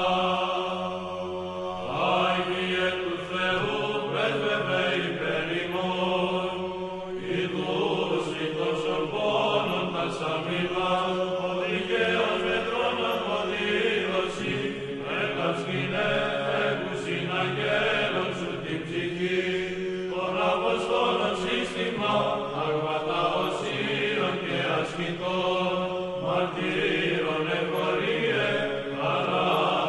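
Background music: slow vocal chant, voices singing long held notes that shift from one pitch to the next.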